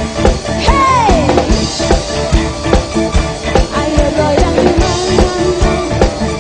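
Live dangdut koplo band playing, with a steady drum beat under a melody that glides down in pitch about a second in.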